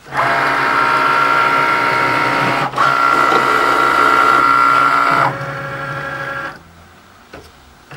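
Cricut cutting machine running a cut through iron-on vinyl: its carriage and roller motors give a steady whir with a whining tone, with a short break about two and a half seconds in. The whir drops to a quieter run a little after five seconds, then almost stops, with a single click near the end.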